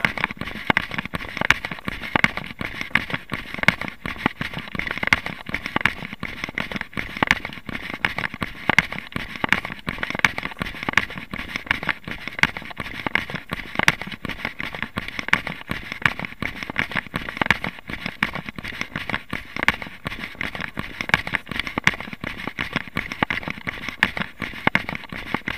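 Dense, irregular crackling and clicking of a runner's footfalls on a gravel path, mixed with the jostling of a body-worn camera.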